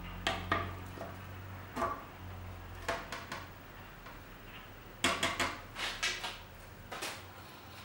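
Clear plastic cover panels clicking and clattering against the steel frame of a CNC machine's Z axis as they are fitted by hand: scattered short knocks, most of them bunched together about five seconds in. A faint low hum underneath fades out about three seconds in.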